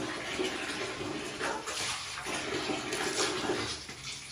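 Water splashing and wet fur being rubbed by hand as a husky is bathed, with louder splashes about one and a half and three seconds in.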